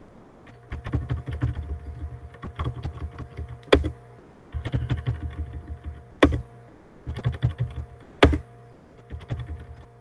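Typing on a computer keyboard in irregular bursts of quick keystrokes, with three single sharper, louder key strikes spaced a couple of seconds apart.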